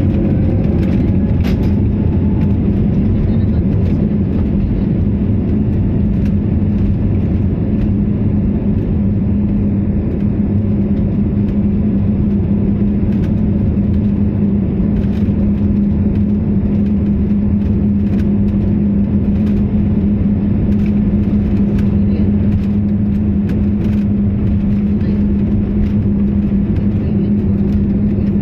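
Jet airliner's engines heard from inside the passenger cabin while the plane taxis: a loud, steady rumble with a constant low hum that neither rises nor falls.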